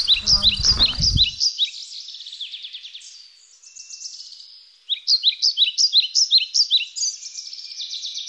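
Songbirds singing: quick, high repeated chirps and trills, loud in the first second and again from about five seconds in, with a softer stretch between.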